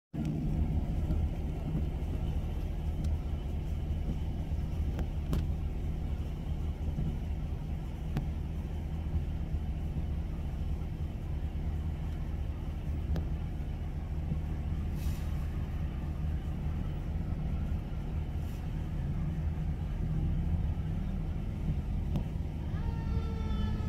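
Fire engine's diesel engine running steadily with a low rumble as the truck pulls out of the station bay, with two short hisses about 15 and 18 seconds in, typical of air brakes. No siren is sounding.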